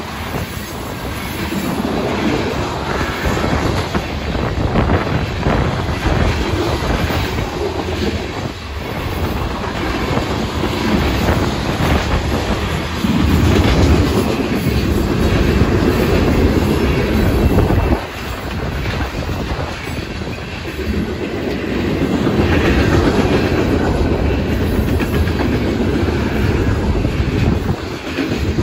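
Union Pacific freight train's cars (tank cars, boxcars and covered hoppers) rolling past close by: a loud, continuous rumble with wheels clacking over rail joints, swelling and dipping as the cars go by.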